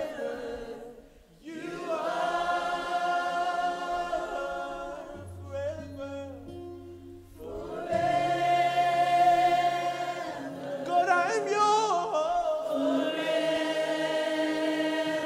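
Live worship music: a group of voices sings long held notes with slow swells, over low sustained keyboard and bass notes. The singing thins out briefly about a second in, then swells back.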